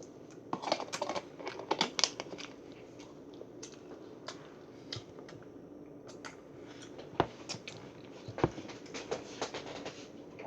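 Kitchen handling noises: rustling and crinkling with clicks for the first couple of seconds, then scattered light taps and two sharper knocks, about seven and eight and a half seconds in.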